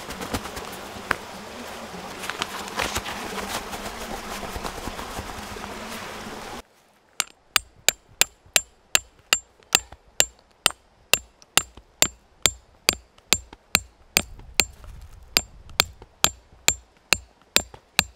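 Metal hook tent peg being hammered into stony ground: a steady run of sharp metal-on-metal blows, about two and a half a second, each with a short bright ring. Before the hammering starts, for about the first six seconds, a dense rustling hiss.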